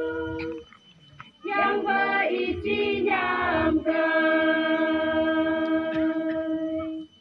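A group of women singing a traditional folk song together, unaccompanied. A held note ends just after the start; a new phrase with shifting notes begins about a second and a half in, then settles into one long held note that breaks off near the end.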